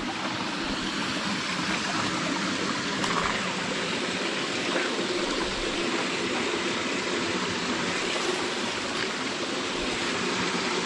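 River water flowing, a steady rushing with no break.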